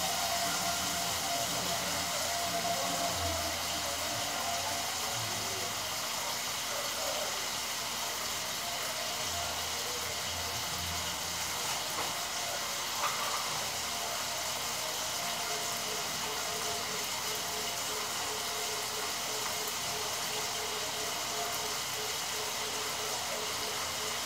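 Pork chops frying in oil in a skillet: a steady sizzle, with a couple of small knocks about halfway through.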